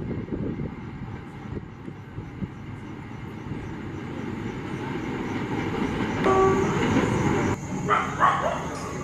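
Rumbling rail noise of an approaching express train that grows steadily louder as the WAP7 electric locomotive nears. A short horn blast sounds about six seconds in.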